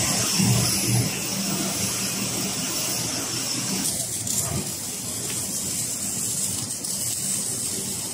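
MIG welding on steel Jeep body panels: a steady hiss and crackle with a low hum underneath.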